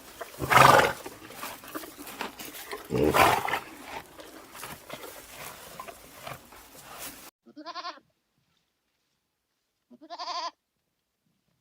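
Livestock bleating. Two loud, harsh calls come over a noisy background in the first few seconds. After a sudden change to a quiet recording, two short, wavering bleats follow about two and a half seconds apart.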